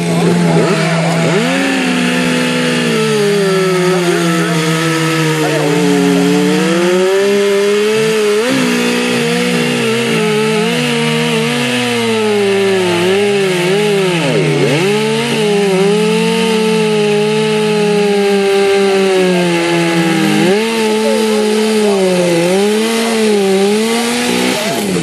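A Solo Twin two-cylinder two-stroke chainsaw at full throttle, cutting through a large log. Its pitch sags and recovers as the chain bites, with one deep bog about halfway through.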